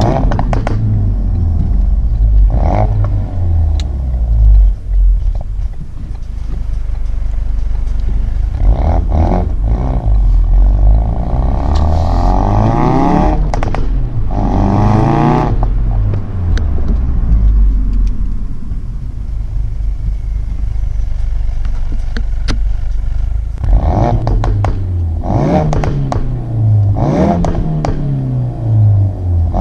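Ford Focus RS Mk3's 2.3-litre turbocharged four-cylinder engine revved up and dropped back several times, the pitch climbing and falling, with sharp cracks and pops from the exhaust in between.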